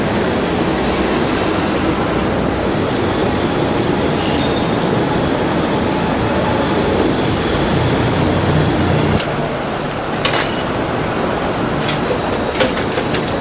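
Steady city street traffic noise with faint high-pitched squeals, a brief high whine about nine seconds in, and a few sharp clicks near the end.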